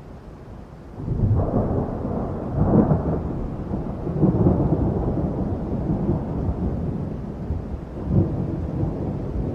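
Thunder from a thunderstorm sound effect: a long, rolling peal breaks in sharply about a second in and swells several times, deep and rumbling.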